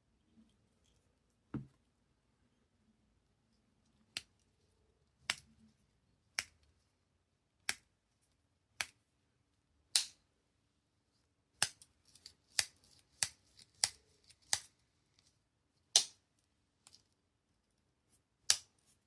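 Victorinox Spartan Swiss Army knife's blades and tools snapping open and shut on their backsprings: sharp single clicks about a second apart, with a quicker run of clicks partway through.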